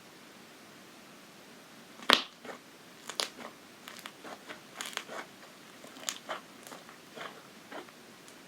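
Bubbly clear slime being squished and stretched by hand, its trapped air bubbles popping in a string of irregular clicks and crackles. The first pop, about two seconds in, is the loudest.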